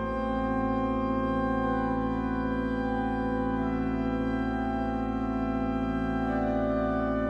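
Slow music of long, sustained chords, held steady with only an upper note changing about six seconds in.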